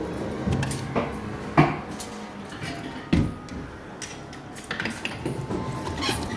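Amusement arcade background with claw machine music and tones, broken by several sharp knocks and clatters, the loudest about a second and a half in and again about three seconds in.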